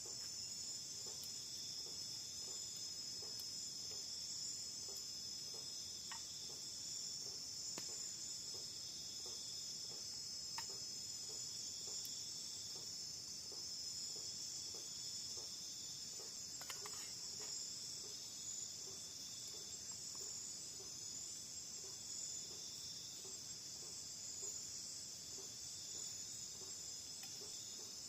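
Night chorus of crickets and other insects, a steady high trilling, with a faint low pulse repeating about twice a second beneath it and a few soft clicks.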